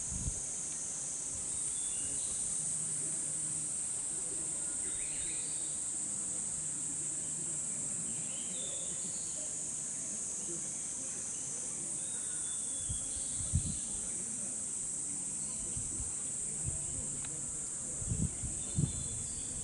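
A dense chorus of cicadas: a steady, high-pitched shrill drone. Faint short chirps sit beneath it, and a few dull low thumps come in the second half.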